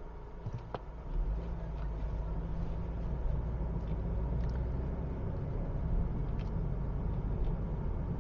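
Car driving, heard from inside the cabin: a steady low rumble of engine and road noise that grows louder about a second in.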